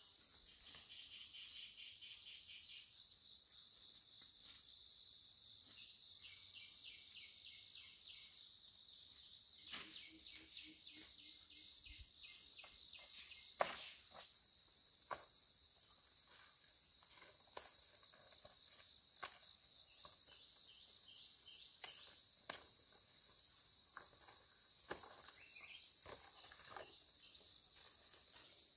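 Insects, crickets or cicadas, chirring in a steady high-pitched drone, with scattered soft clicks and snaps over it; the sharpest clicks come about ten and thirteen and a half seconds in.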